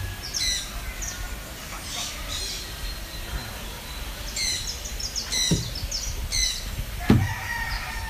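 Birds chirping and calling in clusters of short high notes, with a rooster crowing in the background. Two knocks come about five and a half and seven seconds in, the second the loudest.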